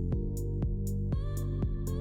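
Electronic background music with a steady drum beat, about two beats a second, over held synth chords.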